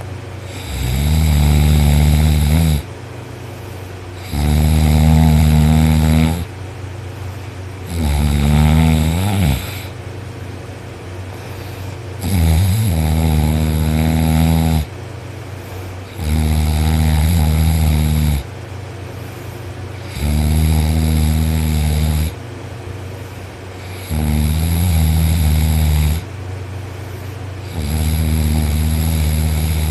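A man snoring very loudly in deep sleep, lying on his back: eight long snores about every four seconds, each lasting around two seconds, with a steady low hum between them.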